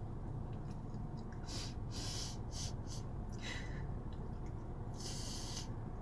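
A woman's short, hissy breaths through the nose while eating, four of them, the longest about five seconds in.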